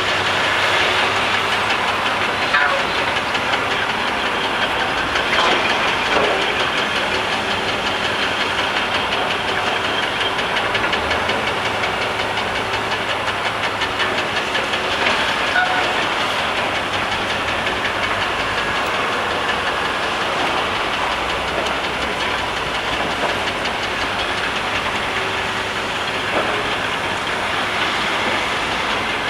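Komatsu PC1250 excavator's diesel engine and hydraulics running steadily under load, with a few brief knocks along the way.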